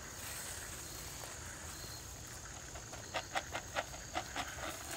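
Steady high-pitched insect chirring, with a quick run of about seven short rustling sounds about three seconds in.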